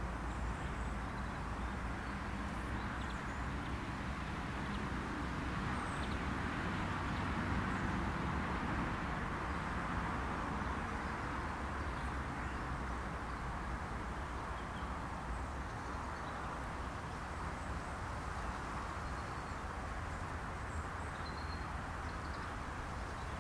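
Steady outdoor ambience in a grassy field: an even rushing noise over a low rumble, with a few faint, short high bird chirps scattered through.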